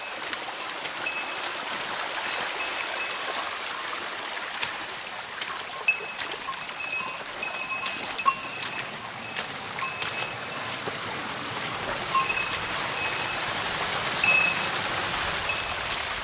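A stream runs steadily, with a scatter of sharp, briefly ringing knocks over it; the loudest knock comes about fourteen seconds in.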